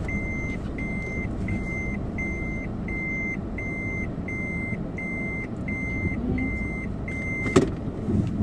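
A car's warning beeper sounding steadily inside the cabin, one even-pitched beep about every half second, over the low hum of the engine running. The beeping stops near the end, followed by a sharp click.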